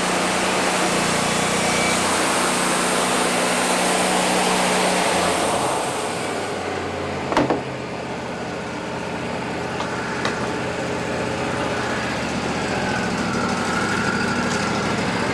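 Wood-Mizer LT40 band sawmill sawing through a cedar log: a loud, steady hiss of the band blade in the wood over the running engine. About six seconds in, the cut finishes and the hiss drops away, leaving the engine running, with one sharp knock a second later.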